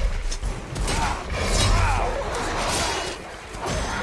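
Film fight soundtrack: snarling creature cries mixed with sharp impacts and crashes over a low rumble.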